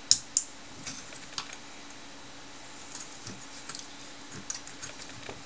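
Light clicks and taps from handling a circuit board and soldering iron while desoldering a capacitor from a power supply board: two sharp clicks right at the start, then scattered faint ticks.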